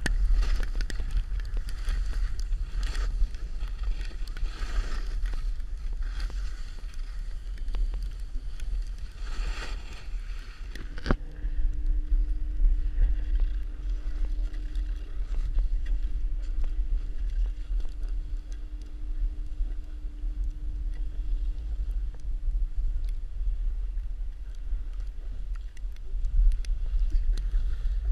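Wind buffeting the microphone of a pole-mounted GoPro, a steady low rumble, with skis hissing over snow in swells every second or two for the first ten seconds or so. After a click about eleven seconds in, a faint steady hum runs for about twelve seconds.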